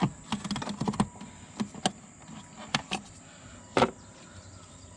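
Irregular plastic clicks and knocks of a mass airflow sensor and its housing and connector being handled and unclipped on a BMW M54 engine's intake, with one sharper knock about four seconds in.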